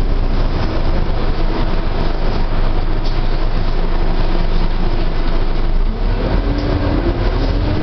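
Inside a moving bus: steady low engine and road rumble with rattling from the body. A pitched engine note rises during the last couple of seconds as the bus picks up speed.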